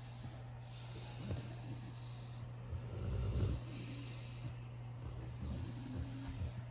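Sleeping puppy snoring: slow, loud breaths of about two seconds each, the strongest about three seconds in.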